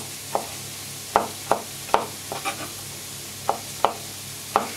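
Chef's knife chopping cherry tomatoes on a plastic cutting board: about nine sharp, unevenly spaced knocks of the blade hitting the board, over a steady sizzle from a frying pan.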